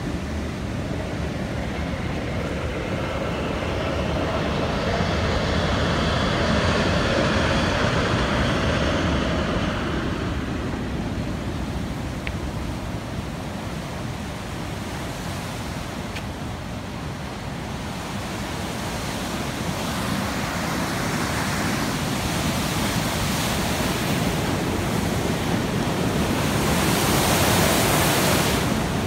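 Turbulent white water rushing and churning out of a dam's sluice, a steady rush of noise that swells midway and is loudest near the end, with wind buffeting the microphone.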